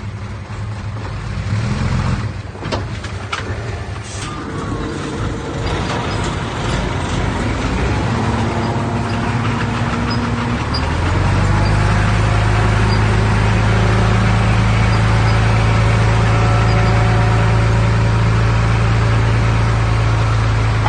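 Heavy diesel earthmoving machinery running. The engine note becomes louder and steadier about halfway through, as if under load, and there are a couple of knocks a few seconds in.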